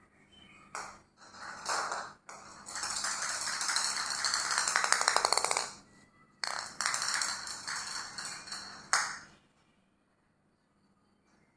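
Small hollow plastic ball knocked and rolling across a hard stone floor: a few sharp knocks and stretches of rolling rattle, the longest lasting about three seconds, then quiet near the end.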